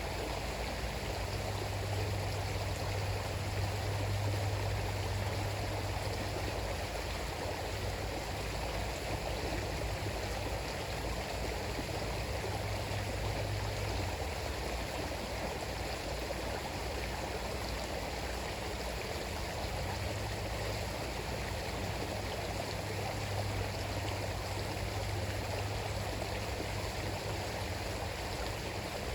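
River water flowing steadily over its bed. A low rumble lies under it for roughly the first half and comes back near the end.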